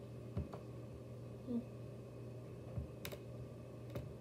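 A few light thumps and sharp clicks of hands handling small objects, over a steady low hum.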